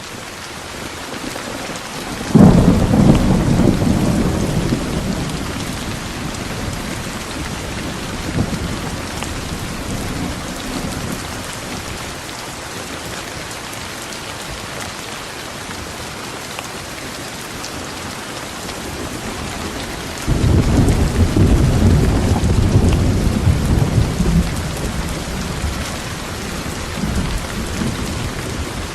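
Thunderstorm: steady rain with two peals of thunder. A sudden loud clap about two seconds in rumbles away over several seconds, and a second long rumble follows about twenty seconds in.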